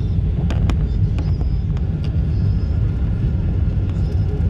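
Boeing 777 on short final heard from inside the passenger cabin: a steady low rumble of engines and airflow, with a few faint clicks in the first two seconds.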